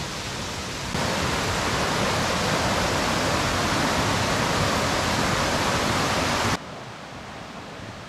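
Mountain stream rushing over rocks in a small cascade, a steady hiss of water. It grows louder about a second in and cuts off suddenly near the end, leaving a fainter hiss.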